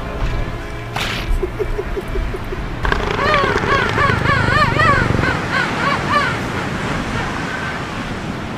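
Southern elephant seals calling from a hauled-out group: a short run of quick low pulses, then a long warbling wail that swings up and down in pitch about three times a second.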